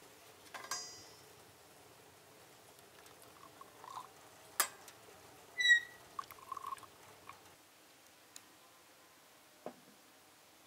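Light handling sounds: scattered small knocks and clicks, with a short ringing clink just under a second in and a louder, brief ringing clink a little past the middle.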